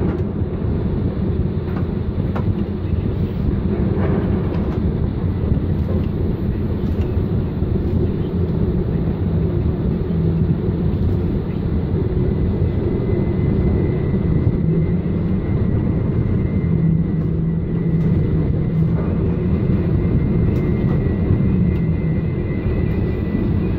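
Ship-to-shore tandem container crane running under hoist: a steady low mechanical drone, with a faint thin whine joining about halfway through, as the twin spreaders are raised out of a ship's hold.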